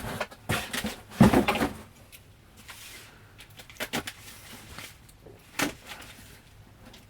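Cardboard and plastic packaging being handled while unboxing a Funko Pop figure. There is a loud rustling knock about a second in, then a few light clicks and taps.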